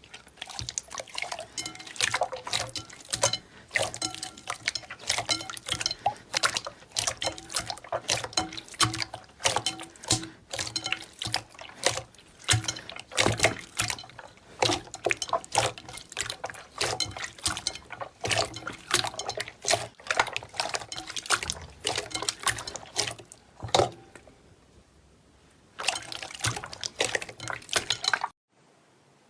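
Slime being squeezed and poked, giving a dense, irregular run of pops and clicks. It eases off for a couple of seconds, returns in a short burst, then cuts off suddenly near the end.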